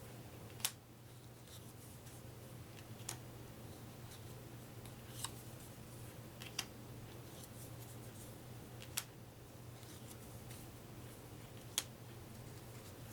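Playing cards being handled and laid down one at a time. There is a sharp click every two to three seconds, six in all, over faint rustling of the cards and a steady low hum.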